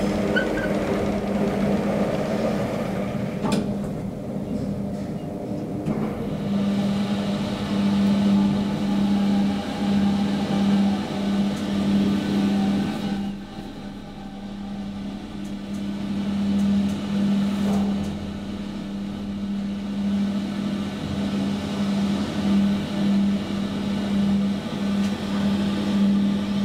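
Steady machine hum: a strong low tone that pulses unevenly, with fainter steady tones above it, dipping in level about halfway through.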